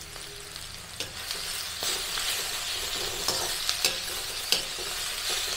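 Vegetables sizzling in hot oil in a kadhai, growing louder about a second in, with a few sharp clicks and scrapes of a utensil against the pan as boiled potatoes are stirred and mashed in.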